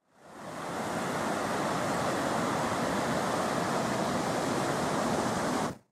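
Ocean surf breaking and washing in as a steady rush, fading in at the start and dropping away just before the end.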